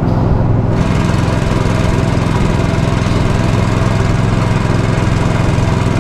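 Longtail boat's engine running steadily under way, a constant droning hum, with a higher hiss joining under a second in.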